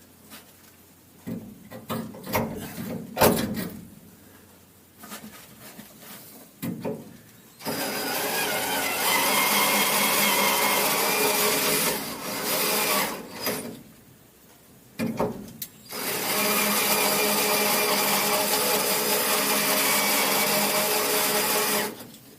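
Electric drill running in two long steady runs of about four and six seconds, with short bursts between them, after a few clicks and knocks of handling.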